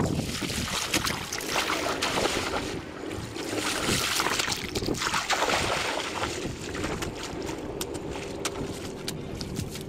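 Shallow muddy water splashing and sloshing as clumps of mud are scooped up and tossed back into it, in several louder bursts, with wind buffeting the microphone.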